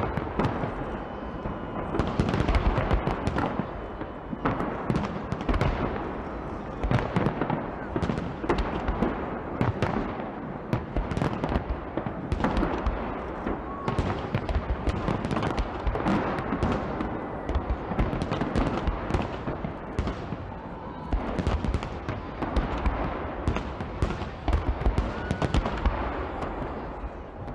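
Aerial firework shells bursting in a dense, irregular barrage of bangs, several a second, without a break.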